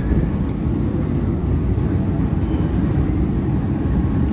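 A steady low rumble with no clear rhythm or pitch.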